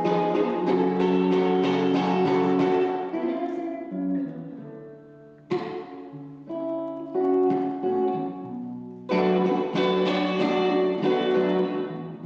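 Acoustic guitar playing an instrumental passage between sung lines: chords ring out and fade, with fresh chords struck about five and a half seconds in and again near nine seconds.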